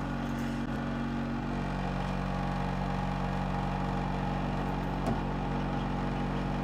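Steady hum of an egg incubator's fan and motor running, with one faint tap about five seconds in.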